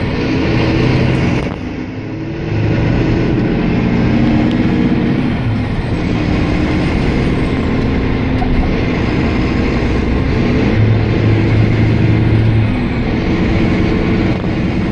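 Volvo B9R coach's rear-mounted six-cylinder diesel engine running under way, heard from inside the passenger cabin together with road noise. The engine note eases off briefly about two seconds in, then comes back and carries on steadily.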